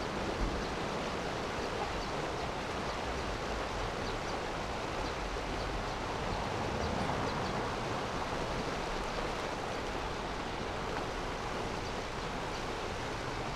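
Steady rushing of water churning across a drop in a concrete-lined canal.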